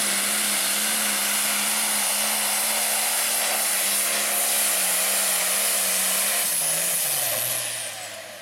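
Diesel engine of an International Harvester pulling tractor running flat out under load against the sled, with a steady engine note and a high blower whine over it. About seven seconds in, the engine note drops in pitch and the sound fades as the tractor comes off full power.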